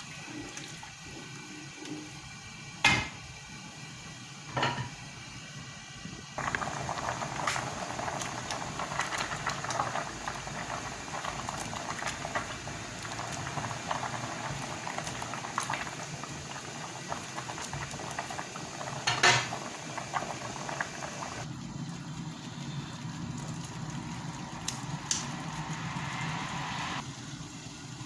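Covered pot of plantain and bean potage boiling, with a few sharp clanks of pot or lid. The boiling gets louder about six seconds in.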